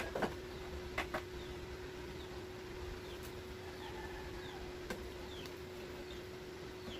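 Tin cans knocking and clinking as they are taken off a metal shelf and handled: a few sharp clicks near the start and another about five seconds in. A steady hum runs underneath, with faint short high chirps repeating in the second half.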